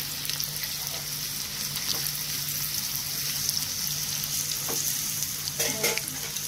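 Sliced onions sizzling in hot oil in a pan, the steady hiss of frying, as a silicone spoon stirs them with a few light knocks against the pan, most of them about six seconds in. They are being fried as the start of a vaghar (tempering). A steady low hum runs underneath.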